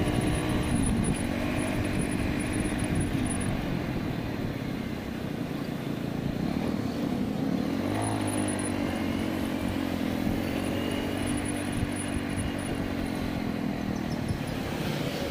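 Motorcycle engine running under the rider at low speed, its pitch dropping about a second in and rising then falling again around eight seconds in as the throttle changes, over wind and road noise.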